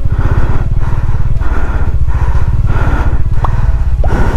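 Motorcycle engine running under load, with a fast, even firing pulse throughout.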